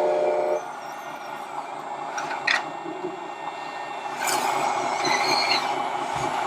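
A model truck's sound-module air horn sounds in a short blast of about half a second, then gives way to a steady mechanical hum with a few scattered clicks and short electronic chirps.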